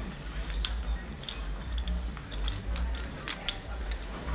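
Scattered light metallic clinks and taps of gym weights and equipment over a steady low rumble.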